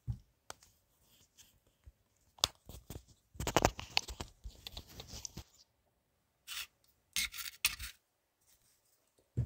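Handling noise from things being moved about by hand: rubbing and scraping, with a dense run of rustling and clicks about halfway through and a few more clicks near the end.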